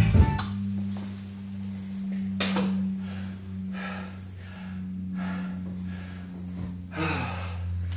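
A man breathing hard in quick, heavy gasps, winded after a hard rowing effort, with a low steady hum underneath.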